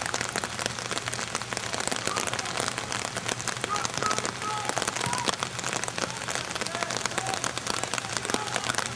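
Steady rain pattering, a dense crackle of many drops.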